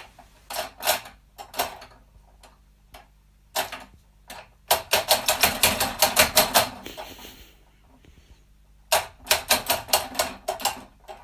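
Rapid clicking and tapping as a cat paws at the hanging pendulum charm of a wall clock, knocking it about. A few scattered taps come first, then two quick runs of about six clicks a second, one around the middle and one near the end.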